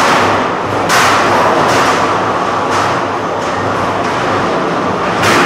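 Featherweight combat robots fighting: a steady mechanical din of drive and weapon motors, broken by several sharp metal impacts, the strongest about a second in and just before the end.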